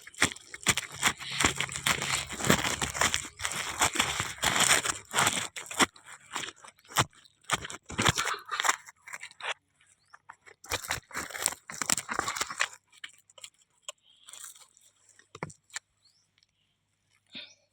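Close crackling and tearing rustle of dry plant matter or material handled by hand, dense for about six seconds, then in scattered bursts, and almost quiet for the last few seconds apart from a few faint crackles.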